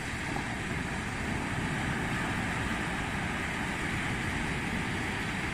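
Sea surf breaking and washing up on a sandy beach: a steady rushing hiss with a low rumble underneath, swelling slightly about two seconds in.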